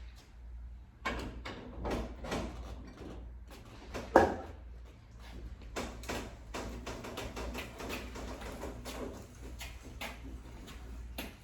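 Irregular knocks, creaks and rattles of a loaded boat trailer being pushed and turned by hand on a tire dolly, with one sharp loud clunk about four seconds in, over a steady low hum.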